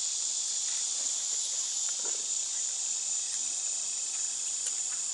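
Chorus of insects in a steady, high-pitched shrill drone.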